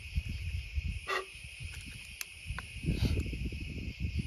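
Crickets chirping steadily, with rustling and scraping as a mini canister shell is pushed down into a cardboard mortar tube by hand. There is a short squeak about a second in and a couple of small clicks.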